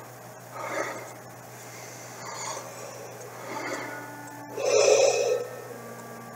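A man breathing audibly while demonstrating belly breathing for singing: three soft breaths, then a louder breath about five seconds in that lasts under a second.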